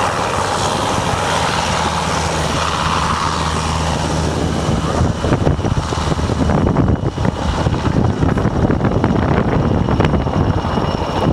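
MRH-90 Taipan twin-turboshaft military helicopter flying past overhead and away, its rotors giving a steady low hum over a high turbine whine. About halfway through the sound turns rough and gusty.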